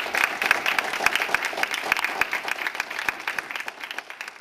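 Small audience applauding, the clapping thinning out and fading near the end.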